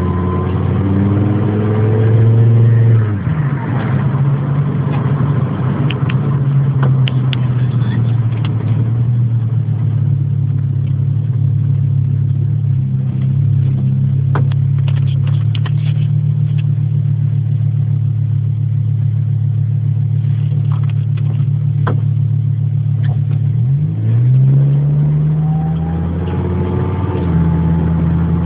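Volvo 855 T5-R's turbocharged five-cylinder engine pulling on the road: the revs climb, drop sharply about three seconds in, hold steady for a long stretch, then dip and climb again near the end. A thin high-pitched whine rides above the engine while the revs are up near the start and again near the end, the mystery noise that appears from about 2000 rpm when driving and remains with the accessory belt removed.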